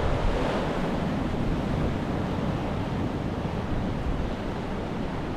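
Surf washing onto a beach under a steady noise of wind buffeting the microphone, with a low rumble and no distinct events.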